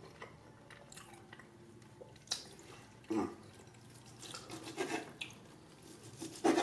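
Close-miked chewing of steak: wet mouth smacks and scattered small clicks, a few louder ones among quieter ones.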